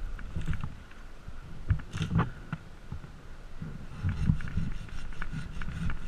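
Irregular knocks, scrapes and clicks from a tree climber shifting his footing on the limbs and handling his rope and gear, with a few sharper clicks about two seconds in and busier knocking toward the end.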